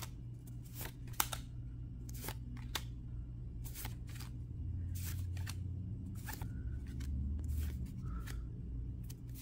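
Yu-Gi-Oh trading cards being flipped through by hand, each card slid off the stack with a short papery swish, about one or two a second at an uneven pace. A low steady hum runs underneath.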